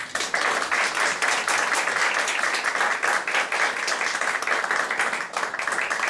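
Audience applauding, breaking out all at once and going on steadily.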